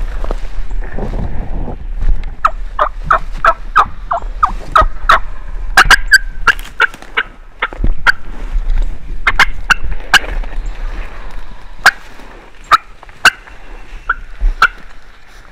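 Loud, close turkey yelping and cutting: a long string of sharp notes at about three a second, crowding together in a fast run around the middle. Brush rustles in the first couple of seconds.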